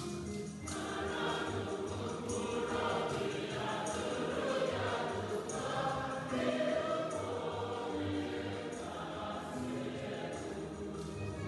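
Background music: a gospel-style choir singing over a bass line and a regular percussion beat.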